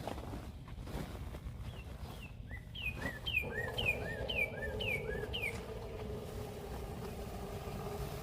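A songbird calling a quick run of about seven repeated chirps, roughly two a second. A steady mechanical hum starts about three and a half seconds in and carries on.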